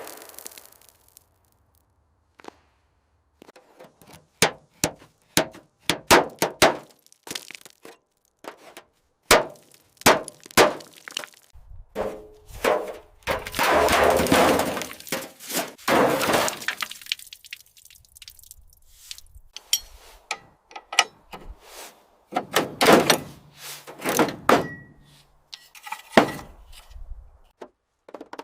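Restoration work sounds: a string of sharp knocks and clanks, with longer rasping, scraping stretches about halfway through and again near the end.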